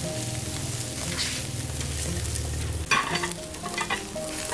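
Pork belly, steaks and sausages sizzling on a wire grate over a charcoal grill, with a few sharp clicks about three seconds in as wooden chopsticks turn the meat.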